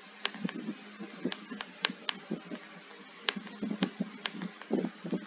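Computer mouse clicking and scrolling, with about nine sharp, irregularly spaced clicks over a steady low hum.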